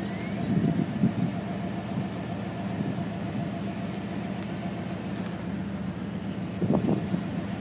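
Steady low hum of an idling engine, with a brief louder sound about seven seconds in.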